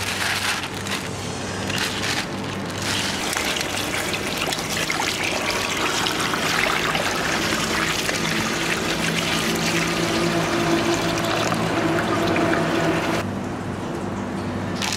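Running water splashing into a stainless steel bowl as coriander and spring onions are rinsed by hand, a steady hiss of water that eases off near the end.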